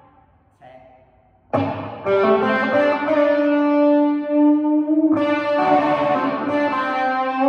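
Electric guitar played through a Gibson GA-18 Explorer tube combo amp and its 10-inch Jensen speaker, volume on 10. A chord dies away into a near-quiet gap with one faint note, then a chord struck about a second and a half in rings out, and another is played around five seconds in.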